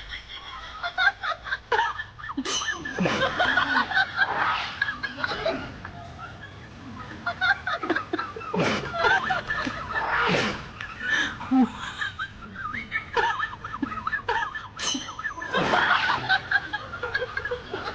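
People laughing in bursts, with some voices mixed in.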